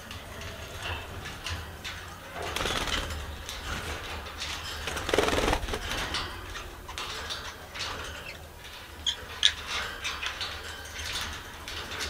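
Pet budgerigars chirping and chattering in short clicks and squeaks, with a brief louder burst of noise about five seconds in.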